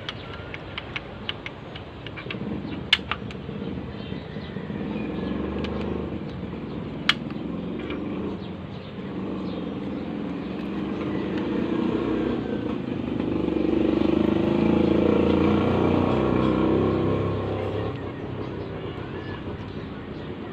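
A motor vehicle passing, its engine sound swelling to a peak and fading. Scattered sharp clicks in the first seven seconds, two of them loud.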